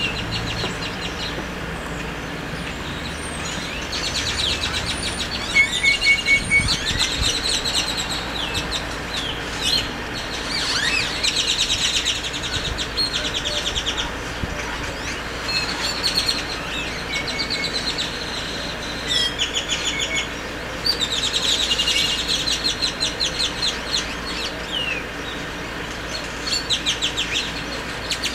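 Many birds calling back and forth: rapid chattering trills and short gliding whistles, coming and going in clusters.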